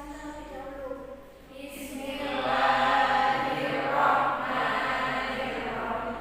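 A group of voices chanting together, joining in and growing louder about two seconds in after a single voice.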